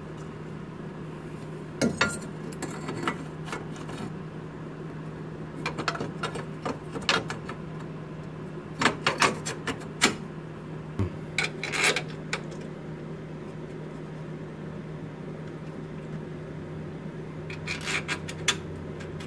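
Metal parts clinking and scraping as a bracket and bolts are fitted by hand to an engine mount: scattered clicks and knocks in clusters, busiest in the middle, over a steady low hum.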